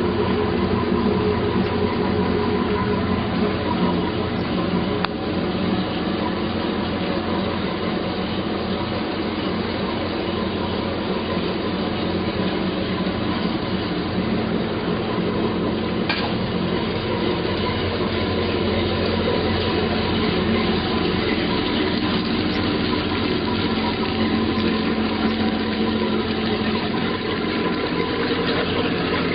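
Mercury MerCruiser 5.0 MPI V8 sterndrive engine running at a steady idle on a garden-hose water supply, with water splashing around the Bravo Three outdrive.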